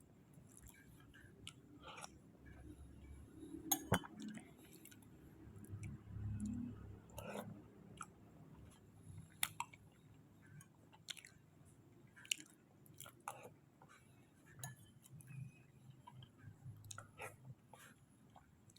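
Close-miked chewing of soft kolak ubi, sweet potato in a sweet coconut broth, with wet mouth sounds and many short sharp clicks; the loudest click comes about four seconds in.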